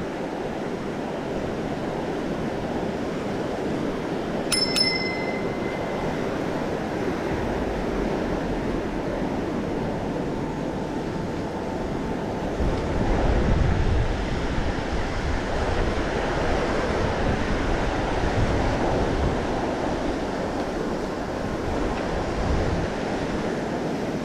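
A bicycle bell struck once, a bright ding about four and a half seconds in that rings for a second or so. Under it runs the steady wash of ocean surf, with wind on the microphone rumbling louder around the middle.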